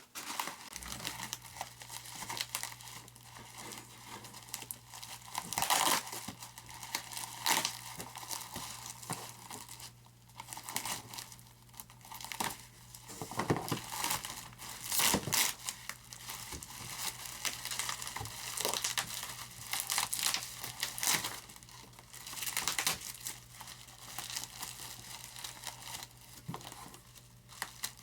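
Plastic wrapping and packing tape being crinkled, peeled and torn off model aircraft parts by hand, in irregular rustling bursts, over a faint steady low hum.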